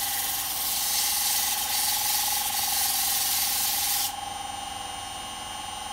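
Sandpaper held against a small wooden turning spinning on a lathe, making a steady hiss that stops abruptly about four seconds in. Under it the lathe keeps running with a steady high whine.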